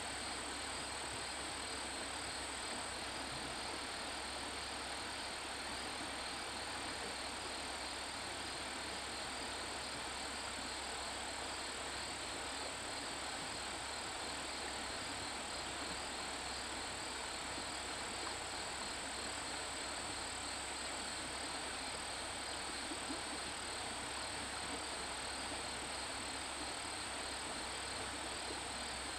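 Steady outdoor ambience of insects chirring, with a constant high whine and an even hiss that never changes.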